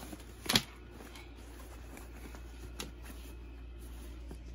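Rustling and handling noise as bags are moved about, with a sharp knock about half a second in and a lighter click a little past the middle.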